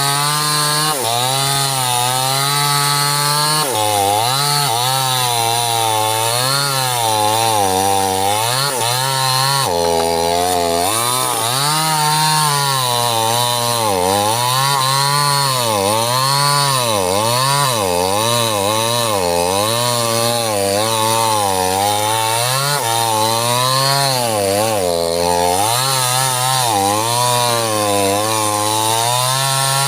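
Small two-stroke chainsaw cutting sengon wood under load, its engine pitch swinging up and down every second or two as the chain bites and frees, dropping lowest about ten seconds in and again near twenty-five seconds.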